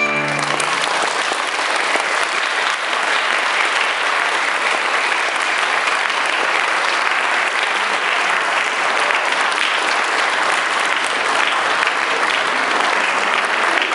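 Audience applauding steadily at the end of a performance. The last piano chord dies away in the first half second.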